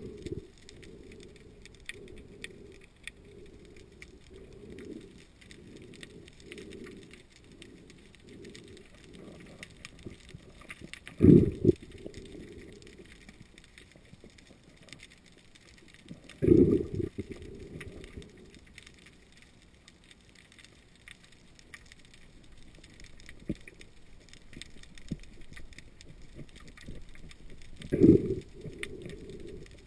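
Underwater sound as a diver pries a scallop shell open with a knife: a low rumble of water with a constant fine crackle of clicks, broken by three louder low surges about 11, 16 and 28 seconds in.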